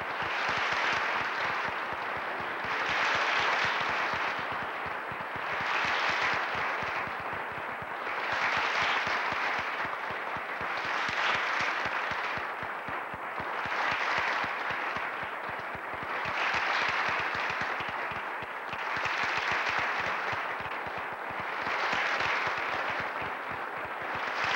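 Theatre audience applauding, a dense clatter of many hands that swells and ebbs about every two and a half seconds.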